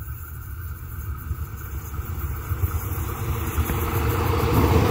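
Diesel multiple-unit passenger train approaching along the track, its engine and running gear rumbling and growing steadily louder as it draws near.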